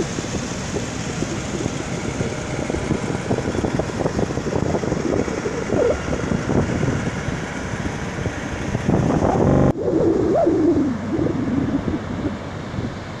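Wind buffeting the microphone over the rush of breaking surf on the beach, a loud gusty rumble. The sound changes abruptly about ten seconds in.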